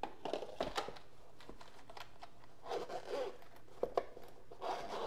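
A zippered hard-shell glasses case being handled and unzipped: a few light knocks and clicks, then rasping stretches of the zip being pulled about three seconds in and again near the end.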